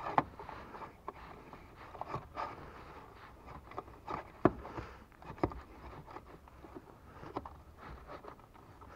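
New non-carbon cabin air filter being slid by hand into its plastic housing behind the glovebox: scattered light scraping and plastic clicks, the sharpest about four and a half and five and a half seconds in.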